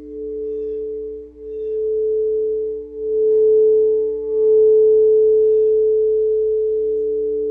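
Singing bowl ringing with two steady tones. It swells louder in waves, then fades slowly from about halfway.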